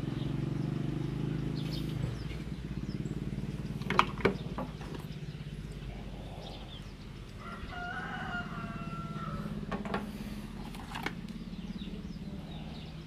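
Plastic adaptor parts and cables being handled, with two sharp clicks about four seconds in, over a steady low drone. About eight seconds in comes a single long animal call, held on one pitch for about two seconds.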